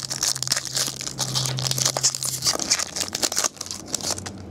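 A foil trading-card pack wrapper crinkling and tearing as it is handled, with cards rustling, in a fast run of crackles that thins out about three and a half seconds in.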